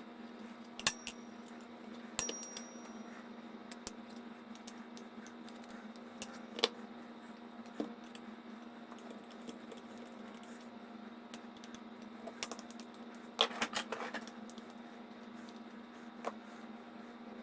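Metal parts of a cast-iron bench plane clinking and clacking as it is taken apart, scattered single clinks with a brief metallic ring on a couple of them and a quick flurry of clacks about three-quarters of the way through, over a steady low hum.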